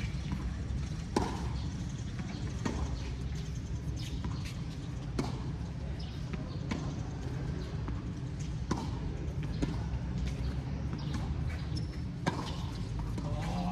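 Tennis rally: a ball struck by rackets and bouncing on the court, sharp knocks every second or two over a steady low background rumble.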